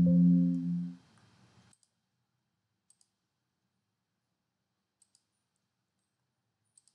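Windows alert chime sounding as a PowerPoint warning dialog pops up: a steady low tone that fades out after about a second. Then near silence with a few faint computer mouse clicks.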